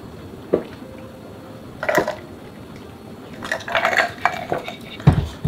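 A swallow, then ice cubes clinking and rattling in a drinking glass as it is lowered, and a low thump near the end as the glass is set down on the table.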